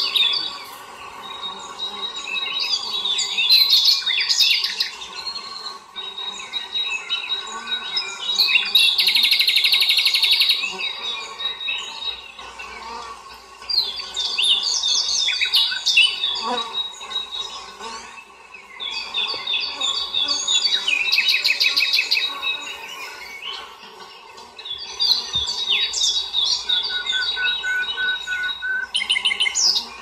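Songbirds singing in repeated phrases a few seconds long with short pauses between, some phrases ending in rapid trills, over a faint steady hum.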